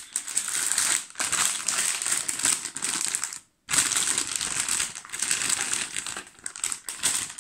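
Crinkly plastic bag of small chocolate eggs being handled and tipped, crinkling in long stretches with two brief pauses as the eggs are poured into a plastic basket.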